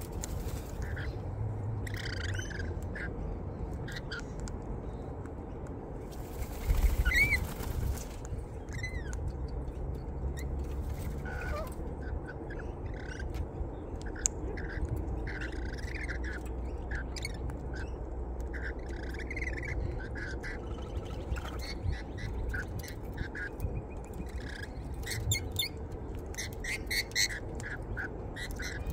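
Mixed birds at a seed feeder calling: scattered short chirps and squawks, with a louder burst about seven seconds in.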